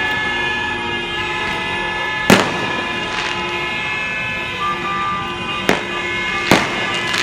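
Many car horns blaring at once in a steady din, with several sharp firecracker bangs going off: a street celebration of a football win.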